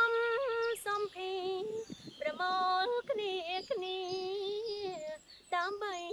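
A high voice singing a slow melody, with held, wavering notes broken into short phrases.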